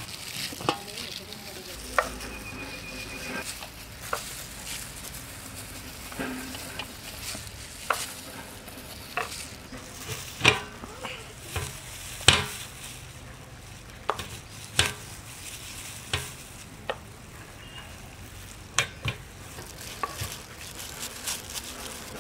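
Kitchen knife slicing peeled mangoes on a plastic cutting board: sharp, irregular taps of the blade on the board, about one every second or two, over a faint steady hiss.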